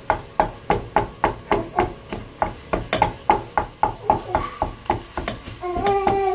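Wooden spatula chopping a fried egg against the bottom of a frying pan, regular knocks about three to four a second. Near the end a voice holds a sung note over the chopping.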